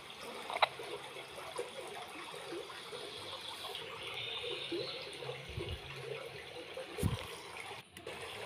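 Underwater ambience: a steady watery rushing hiss, with a sharp click about half a second in and a low thump about seven seconds in.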